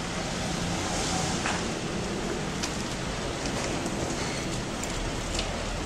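Steady outdoor street noise, an even hiss, with a few faint clicks.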